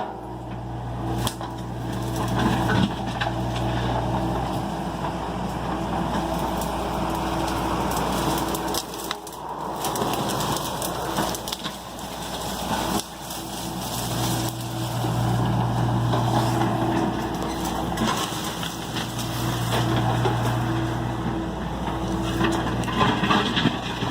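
John Deere excavator's diesel engine running under varying load, its steady tone dropping away and coming back several times, with scattered cracks and knocks of material being broken or crushed.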